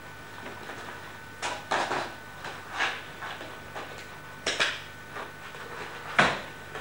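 Handling noises from an object worked in someone's hands: a string of irregular clicks and knocks, the sharpest about six seconds in.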